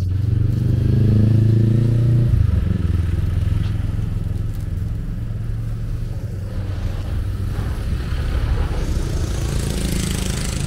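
A motor vehicle's engine running close by, rising in pitch over the first two seconds as it accelerates, then settling into a steady low rumble; a hiss comes in near the end.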